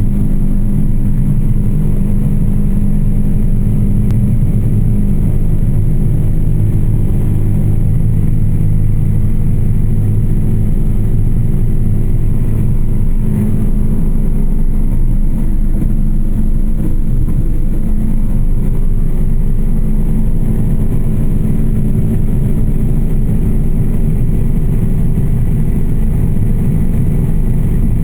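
Airplane engine in flight, heard from outside the aircraft: a loud, steady low drone that holds even throughout.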